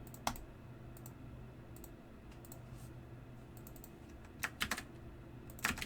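Scattered computer keyboard and mouse clicks: a sharp click just after the start, a few faint ones, then several louder clicks in quick succession near the end.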